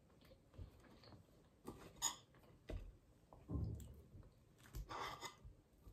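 A fork digging into the flaky, crumb-covered top of a homemade Napoleon cake, with a few quiet, scattered crunches and chewing.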